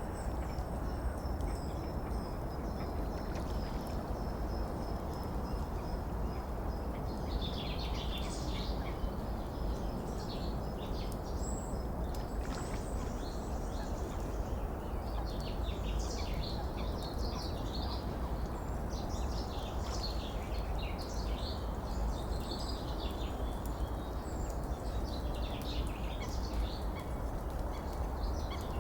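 Several birds calling and chirping over a steady rush of running water, with a thin, high, steady note in the first several seconds before the calls grow busier.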